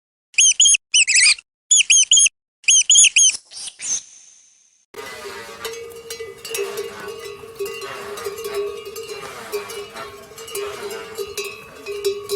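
Bursts of quick, high, squeaky animal chirps, four or five to a burst, through the first four seconds. From about five seconds, a dense, continuous clattering noise with a steady low hum runs until shortly before the end.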